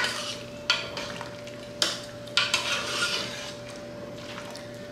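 A utensil clinking and scraping against a cooking pot as dried yellow split peas are added and stirred into soup. Four sharp clinks come in the first two and a half seconds, then about a second of rustling.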